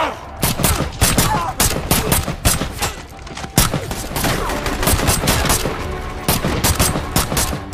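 A firefight: irregular gunshots and short bursts of automatic fire in quick succession, with one especially loud shot about halfway through.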